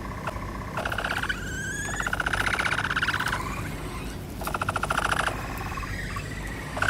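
Capybara calling in bouts of rapid clicks, one short, one longer and one more shortly before the end, with a short rising whistle-like call about a second in.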